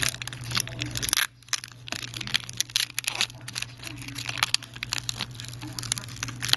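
Thin protective plastic film being peeled off a phone screen part, crinkling and crackling in many quick, irregular snaps.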